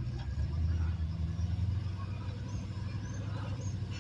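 Modified off-road truck's engine running under load as it crawls its rear end over a rock ledge, a low rumble that swells about half a second in and eases back after a second or so.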